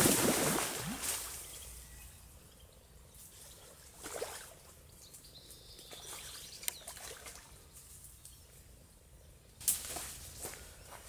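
Water splashing at the edge of a pond, loudest in the first second, with smaller splashes about four seconds in and again near the end.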